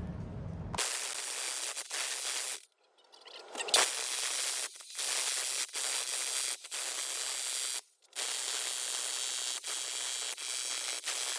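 Jackhammer breaking up a concrete floor, run in bursts with a pause of about a second near the start and several brief stops between bursts.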